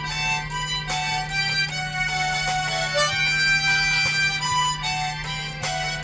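Harmonica in G playing a slow melody, held notes moving from one pitch to the next.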